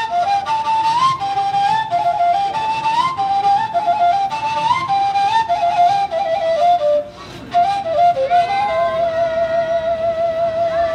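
Armenian folk flute, the srinq, playing a solo melody in short stepped phrases, with a brief break about seven seconds in, then settling into one long held note near the end.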